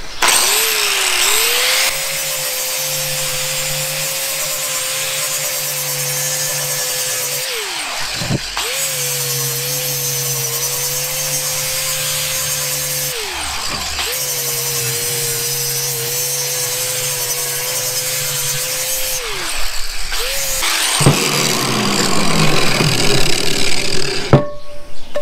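A 4-inch angle grinder with an 80-grit disc grinding the cooking surface of a cast iron skillet to smooth out the high spots of a rough casting. The motor runs with a steady whine over the grinding noise, and it is let off and started again twice, the pitch dropping and rising back each time. It stops near the end, and a few knocks follow.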